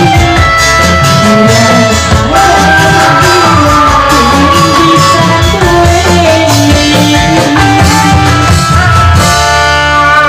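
A woman singing through a microphone over loud amplified Indramayu reog performance music.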